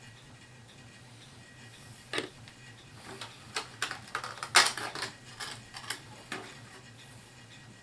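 Irregular light clicks and clacks of small plastic HeroClix miniatures being handled, starting about two seconds in, with one louder clack in the middle.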